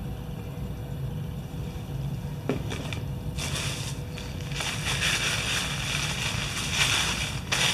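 Crinkling and rustling of cosmetics packaging being handled, starting about three seconds in and carrying on, over a low rumble.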